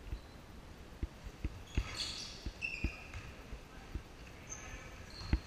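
A basketball bouncing on a hardwood gym floor: about eight dull thumps at uneven intervals, the last near the end being the loudest, with a few short high squeaks around two seconds in.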